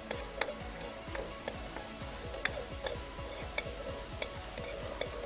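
Chopped garlic and onion sizzling in butter in a frying pan while being stirred, the utensil tapping and scraping against the pan about every half second.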